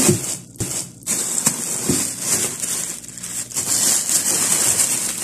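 Plastic bags of frozen food rustling and crinkling as packages are shifted inside a freezer compartment, with a few light knocks.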